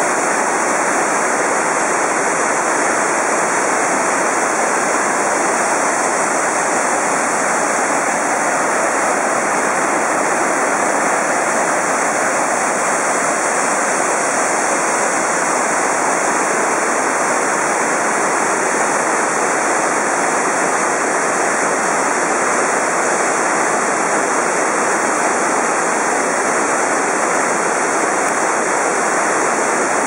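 Waterfall cascading over rock: a steady, loud rush of falling water.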